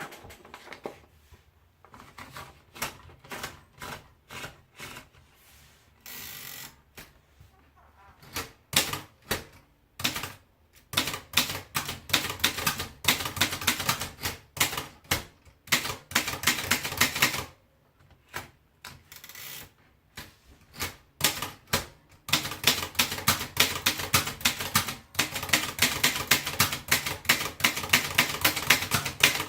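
Torpedo model 12 manual typewriter being typed on: slow, scattered keystrokes at first, then quicker, almost continuous typing over the last third, with a couple of short pauses along the way.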